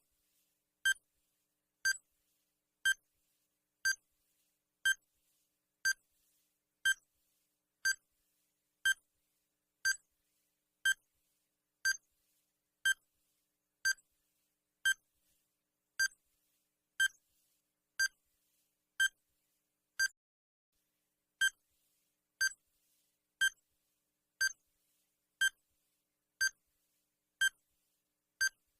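Digital countdown timer sound effect: one short, high electronic beep every second, marking off the seconds of the countdown.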